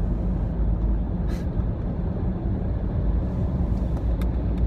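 Steady low rumble of a car driving at freeway speed, heard from inside the cabin: engine and tyre road noise. A short faint click sounds near the end.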